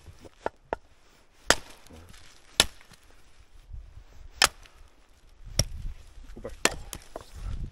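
Firewood being split into small pieces: sharp, dry wooden chopping strikes, about one a second, with a few lighter taps in between.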